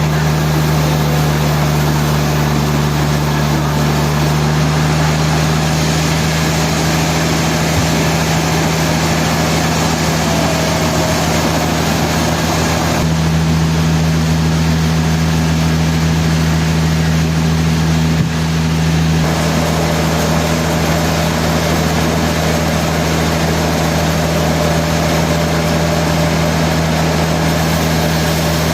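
Sawmill machinery running steadily with a strong low hum. The tone shifts for a few seconds about halfway through, with a short knock, then settles back.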